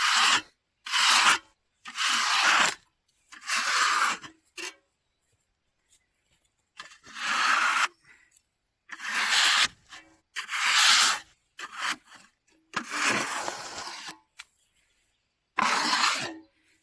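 About nine rough brushing or scraping strokes, irregularly spaced with short gaps between them: sawdust being cleared off the freshly sawn face of a mesquite slab.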